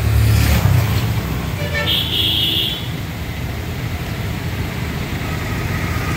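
Road traffic with a steady low rumble, and one short high-pitched vehicle horn toot about two seconds in, lasting about a second.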